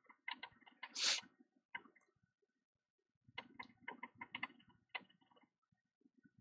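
Faint clicks and taps in two short clusters, with a brief hiss about a second in.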